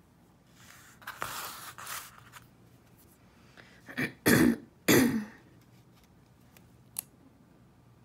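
A person coughing: a small cough about four seconds in, then two loud coughs in quick succession, after a second of softer breathy noise earlier on.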